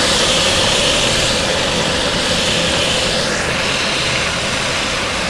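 Crushed garlic sizzling in hot coconut oil in a large aluminium pot: a loud, steady hiss that is brightest for the first three seconds, then eases slightly.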